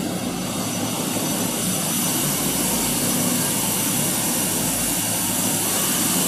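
A steady, even rushing noise, like a room fan or cooler running, with no strokes or breaks.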